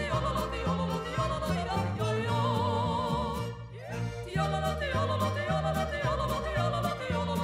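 Background music: a melody sung with vibrato over a stepping bass line and a steady beat, dropping out briefly about three and a half seconds in.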